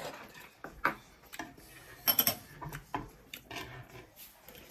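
Metal chopsticks and tongs clicking and scraping irregularly against a wide pan and dishes while food is picked up.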